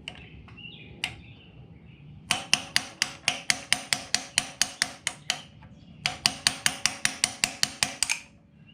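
Rapid metal-on-metal hammer blows driving a pilot bearing into the end of a crankshaft, each strike with a short ring. The blows come in two quick runs of about four to five a second, with a brief pause between them.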